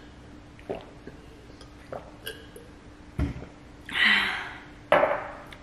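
Small gulps and clicks as water is sipped from a glass, then a thump as the glass is set down on the countertop about three seconds in, followed by two loud breathy exhalations.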